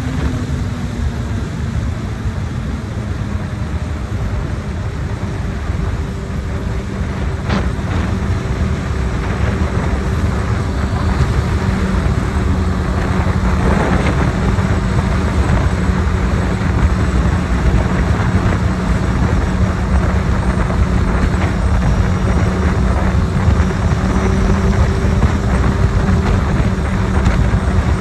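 Honda CB1000R's inline-four engine running at highway speed under loud wind noise on the microphone. The engine note drops a little in the first second as the bike slows, then holds a steady hum while cruising.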